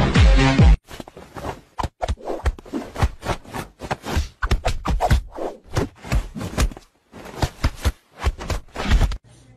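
A brief burst of electronic music that cuts off under a second in, then an irregular run of taps and slaps, a few a second, as a cat and a person's hand swat at each other.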